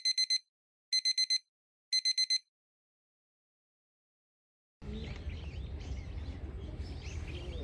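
Electronic alarm-clock-style beeping: three groups of four quick beeps, about a second apart. After a short silence, quiet outdoor ambience with a low hum and faint bird chirps.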